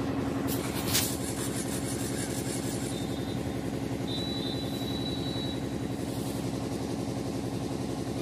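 A steady mechanical hum of a running motor, with a single sharp click about a second in and a brief high tone between four and five seconds.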